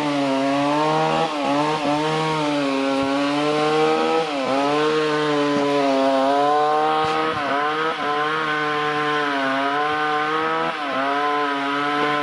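Two-stroke chainsaw running steadily while cutting trees, its pitch dipping briefly every one to three seconds and recovering.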